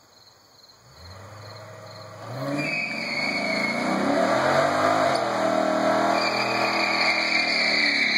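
Chrysler 300 sedan doing a burnout. Its engine comes up about a second in, revs higher from about two and a half seconds, and is held at high revs while the spinning tyres squeal. Faint crickets chirp at the start.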